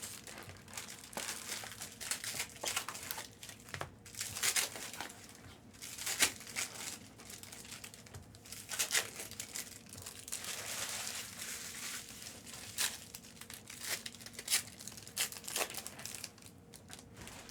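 Plastic-foil wrappers of Panini Prizm retail trading card packs being torn open and crinkled by hand: an irregular run of crackling and rustling.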